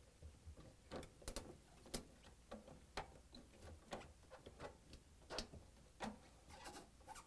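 Faint, irregular clicks and light taps, about two a second, from the metal outer clamp being handled and worked into the groove of the washer's rubber door boot seal.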